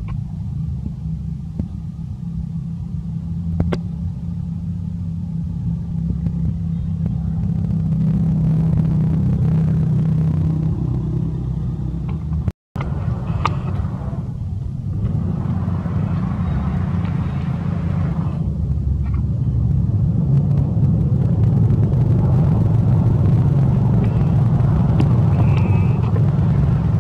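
Steady low rumble that fills the whole track, with a brief cut to silence about twelve and a half seconds in.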